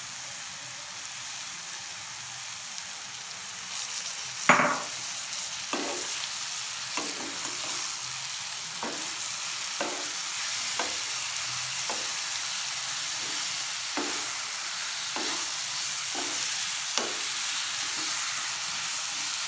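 Whole royna fish and sliced aubergine sizzling in hot oil in a karahi as a wooden spatula stirs them. The spatula knocks against the pan about once a second, with one louder knock about four and a half seconds in.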